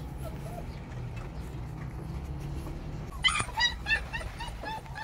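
German shepherd puppy whimpering: a quick run of short, high, whining yelps, each rising and falling, several a second, starting about three seconds in after a low rumble.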